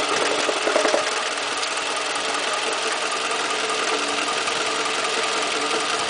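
Toyota 2AZ-FE four-cylinder engine idling with the transmission in gear, with a repetitive knock coming from the area of the starter.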